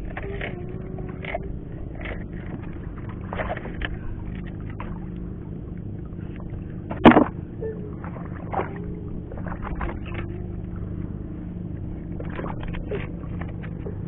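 Knife blade scraping and prying shellfish off a rock, with scattered clicks and scrapes and one sharp knock about seven seconds in, over a steady low background rumble.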